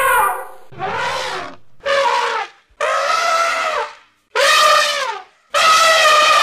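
African elephants trumpeting: a string of loud, brassy calls, each about a second long with short gaps, some falling in pitch at the end.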